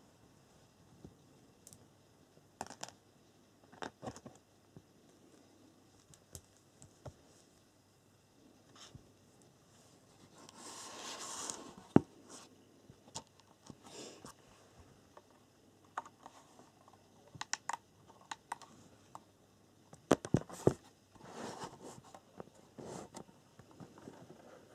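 Hands handling a SkyRC T100 plastic battery charger and turning it around on a cutting mat. Scattered clicks and knocks, a scraping rustle of about two seconds near the middle that ends in a sharp knock, and a quick cluster of clicks later on.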